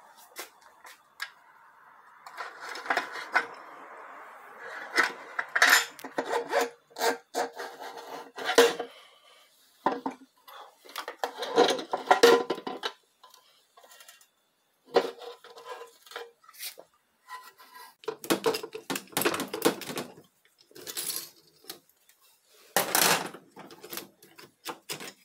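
Steel clutch plates and other internals of a 6R80 six-speed automatic transmission clinking and scraping against each other and the case as they are pulled out and handled by hand: irregular clusters of metallic clatter with short pauses between.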